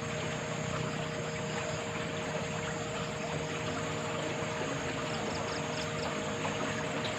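Steady rush of flowing water with a few steady droning tones over it.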